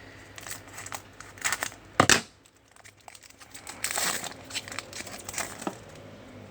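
A trading card pack wrapper being torn open and crinkled in the hands, in irregular crackly bursts, with two sharp loud rips about two seconds in.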